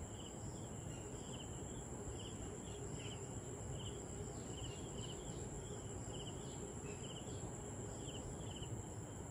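Insects chirping: short, high chirps repeating about twice a second over a steady, faint, high-pitched insect hum.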